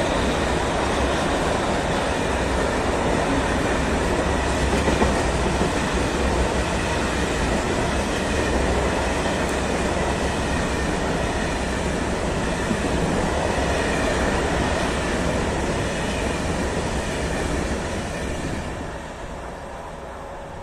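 Freight train of covered hopper wagons rolling past at close range, wheels rumbling and rattling on the rails. The sound dies away near the end as the last wagon goes by.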